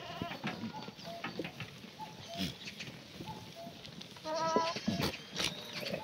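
Herd of Korean black goats calling: scattered short, faint bleats, then one loud, high bleat about four seconds in, with a few sharp knocks among them.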